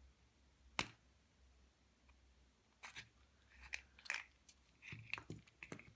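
Light clicks and scrapes of plastic lock parts being handled as the core housing is worked out of a plastic lockout padlock body: one sharp click about a second in, then a cluster of faint clicks and scratches in the second half.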